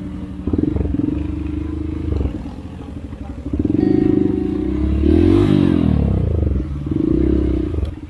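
Dirt bike engine revving in uneven throttle bursts, its pitch rising and falling, loudest from about four to seven seconds in.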